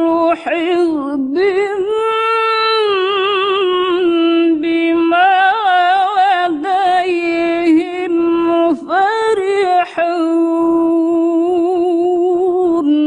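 A woman reciting the Quran unaccompanied in the melodic tilawah style, drawing out long ornamented notes with a quavering, wavering pitch and only brief breaks between phrases.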